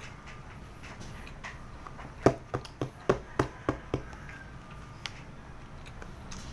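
Close-up crunching of crispy fried turon, a banana spring roll, being chewed: a quick run of about six crackly crunches about two seconds in, the first the loudest, then one more a second later.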